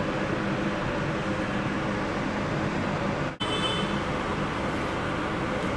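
Steady kitchen background noise, an even hiss with a faint low hum, broken by an abrupt cut about three and a half seconds in, after which the same noise carries on.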